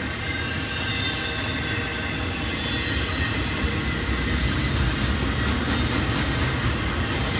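Double-stack container well cars rolling past on steel rails: a steady low rumble of wheels on track, with thin high-pitched wheel squeal running over it that grows a little stronger after about two seconds.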